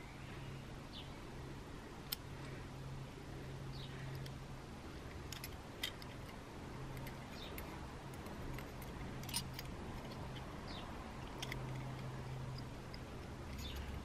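Scattered light metallic clicks and taps of a brake pad and its backing plate being worked by hand into a motorcycle's rear brake caliper, over a low steady hum.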